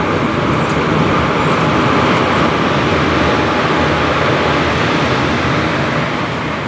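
Indian Railways express train pulling in alongside a station platform: the locomotive goes by and the passenger coaches roll past with a loud, steady rumble of wheels on rails. The rumble is a little quieter near the end.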